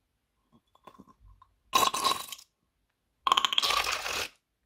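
Slime squelching and crackling as it is squeezed out of a rubber balloon's neck onto foam-bead slime, in two bursts of about a second each, after a few faint clicks.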